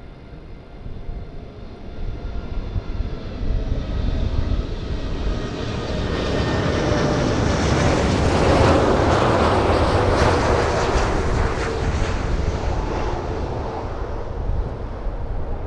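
Lufthansa Boeing 747-8's four GEnx turbofan engines passing low on final approach: a jet roar with a steady whine on top that swells to its loudest about eight to ten seconds in and eases slightly as the jet nears touchdown.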